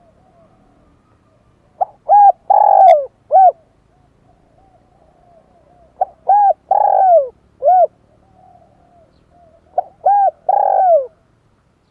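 Dove cooing: three loud phrases about four seconds apart, each a short coo, a longer coo that falls at its end, and another short coo, with soft quieter cooing running between them.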